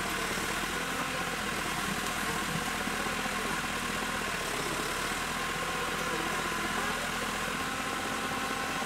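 Backhoe loader's diesel engine idling steadily.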